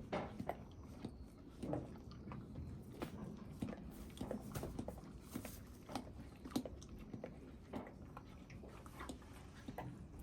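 A horse chewing hard mint candy, with irregular crunches and clicks from its teeth.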